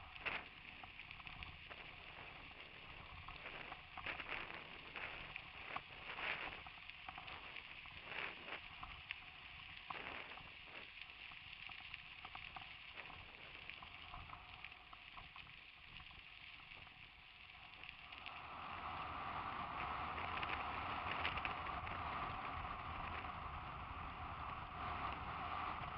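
Mountain bike riding over a gravel track, heard from the rider's helmet: a steady rush of wind and rolling tyres with scattered knocks and rattles as the bike and helmet camera jolt over bumps. About eighteen seconds in, the sound turns into a steadier, louder hiss.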